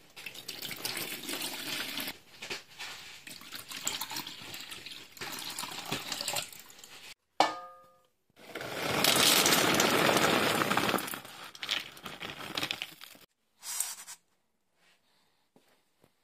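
Water poured from a plastic bottle splashes into a plastic pet bowl for several seconds. About seven seconds in, a stainless steel bowl gives one ringing clang. Then dry pet kibble is poured into the steel bowl: a loud rush of pellets that tails off into a few scattered clicks.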